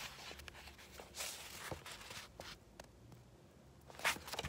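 A paperback book being handled and turned round: soft paper rustles and a few small taps and clicks, with a slightly louder rustle about four seconds in.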